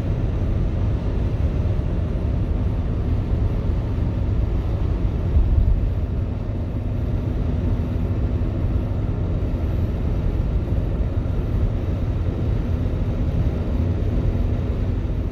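A steady low rumble with a faint, even hum running through it; no calls or knocks stand out.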